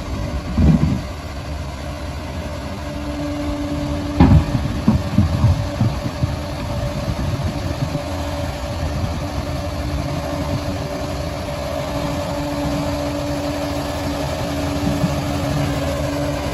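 Bulldozer's diesel engine running steadily, with a few louder knocks about a second in and again around four to five seconds.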